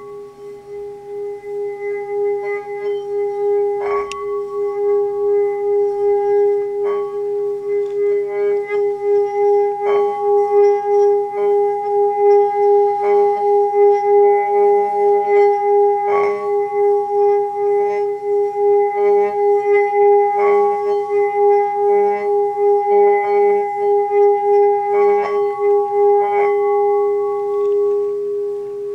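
Brass Tibetan singing bowl rubbed round its rim with a wooden stick, ringing one steady hum with a wavering pulse that swells over the first ten seconds. The stick clicks against the rim now and then.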